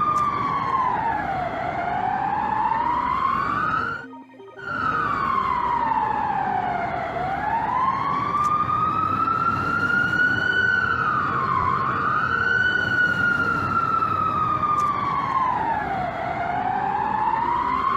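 Emergency alarm siren wailing, its pitch sliding slowly down and back up in long sweeps of several seconds each. It cuts out briefly about four seconds in, over a steady background of noise.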